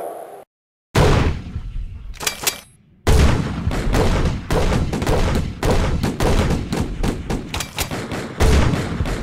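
Gunfire: one loud bang about a second in, then from about three seconds on a rapid, continuous barrage of overlapping shots, several a second.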